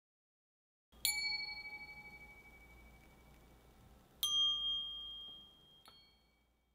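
Struck bell-like chime notes in the soundtrack, each ringing and slowly fading: one about a second in, a second, higher note about three seconds later, and a faint third just before the end.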